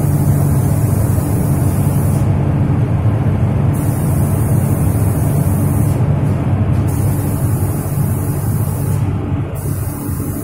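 Gravity-feed air spray gun hissing as paint is sprayed, the hiss cutting out briefly when the trigger is let off about two, six and nine seconds in. Underneath runs a steady low machine hum.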